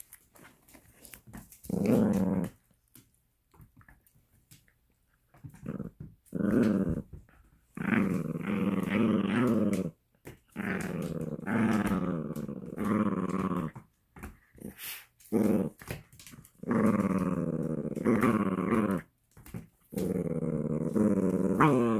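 Italian greyhound play-growling: a string of about seven drawn-out growls, each a second or two long and wavering in pitch, the excited 'revving the engine' sound of the breed at play.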